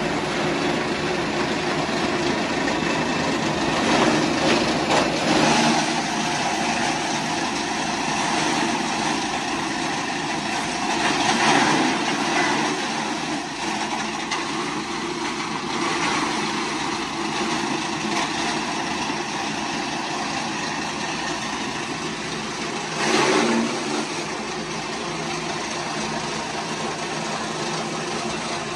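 Motorised grass chopper running steadily, with short louder surges as bunches of grass are fed through it.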